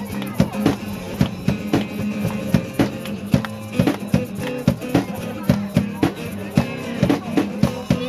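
Live music from a one-man busker: a drum kit keeping a steady beat of kick drum and snare or rimshot hits over sustained guitar notes.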